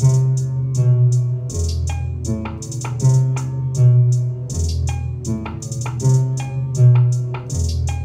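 Trap beat in progress playing back on a loop: a repeating melody over long, deep 808 bass notes and quick, regular hi-hat ticks.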